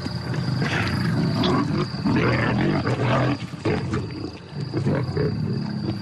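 Several lions growling over a carcass as they feed, in irregular surges that rise and fall, typical of the aggression lions show when eating together.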